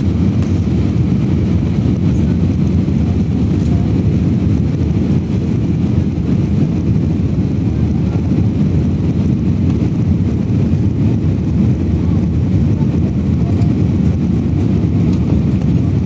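Steady low rumble of a jet airliner in descent, engine and airflow noise as heard inside the passenger cabin.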